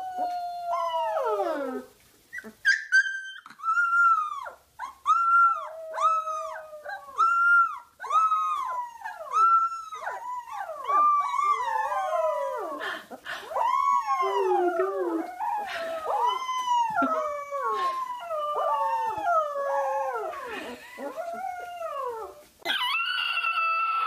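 Puppies howling: a long string of short, high howls, each rising and then falling in pitch, with two voices often overlapping through the middle.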